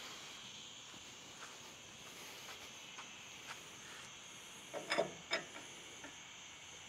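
A few light metallic clinks and knocks, loudest in a quick cluster about five seconds in, as the engine hoist's handle is fitted and worked. Under them is a steady high outdoor hiss.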